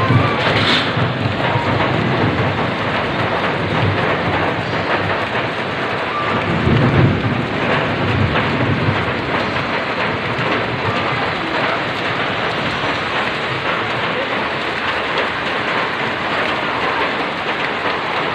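Heavy rain pouring steadily onto a flooded street, splashing into the standing water, with a few low rumbles, the strongest about seven seconds in.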